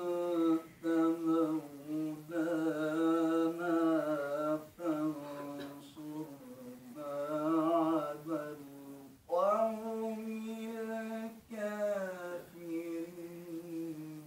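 A man reciting the Quran in melodic Arabic chant (tilawah), drawing out long wavering held notes in phrases broken by short breaths. About nine seconds in, a new phrase starts on a higher note and settles lower.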